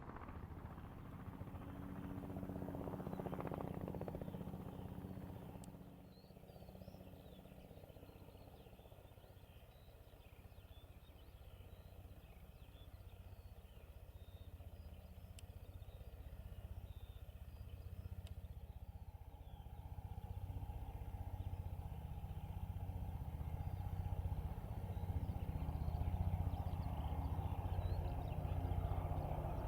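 Robinson R44 helicopter heard at a distance: a low, pulsing rotor and engine hum that fades over the first few seconds, stays faint through the middle while small birds chirp, then grows steadily louder over the last ten seconds.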